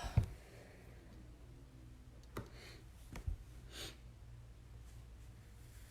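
Quiet room with a steady low hum, a few faint taps from cards being handled, and a couple of soft breaths or sighs.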